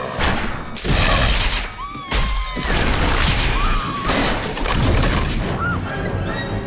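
Film sound effects of a small plane crashing down through forest trees: a run of loud crashes, smashes and breaking, with high wavering screeches between the impacts.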